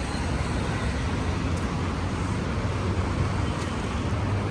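Steady road traffic noise: the continuous hum and rush of passing cars on a city street.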